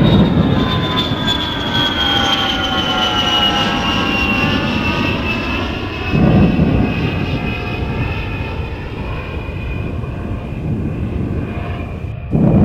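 Airplane flying low overhead, its engine whine falling slowly in pitch as it passes, over a steady low rumble. The rumble surges louder briefly about halfway through and again near the end.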